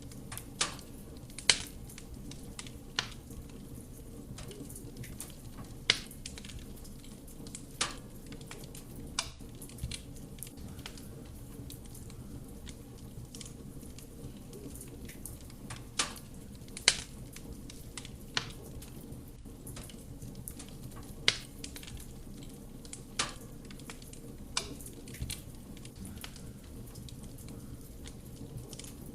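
Wood fire burning in a fireplace: a steady low rush of flame, with sharp crackles and pops from the burning wood at irregular intervals.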